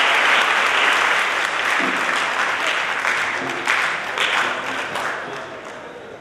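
Audience applauding, the clapping slowly fading away toward the end.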